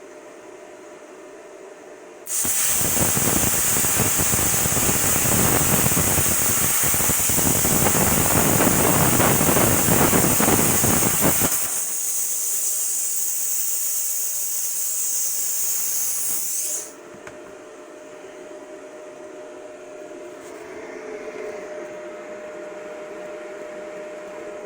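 Primeweld Cut 50DP plasma cutter arc cutting 3/16 steel plate: a sudden loud hiss with a rough crackle for about nine seconds. The arc then goes out and the torch's air keeps hissing for about five seconds before cutting off sharply.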